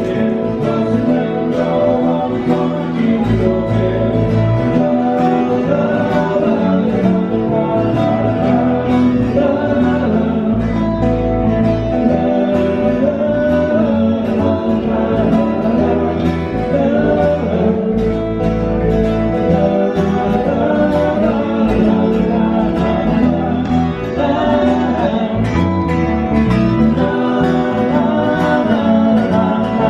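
A small live band playing, with guitars, bass guitar and a singer.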